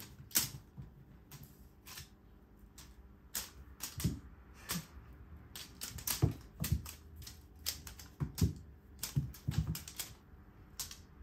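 Cats pouncing after a wand toy: irregular clicks and taps of paws and claws on a hardwood floor, with several soft thumps as a cat jumps and lands, busiest from about four seconds in.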